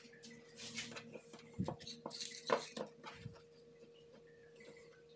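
Hands handling insulated electrical wires and solder wire on a wooden tabletop: a few short rustles and light taps over the first three seconds.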